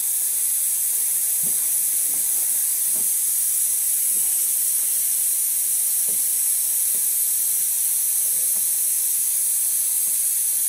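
Steady hiss of compressed air leaking from a pressurized PVC-pipe paintball grenade fill station, mainly at its cap, with a few faint knocks as the brass fittings are handled.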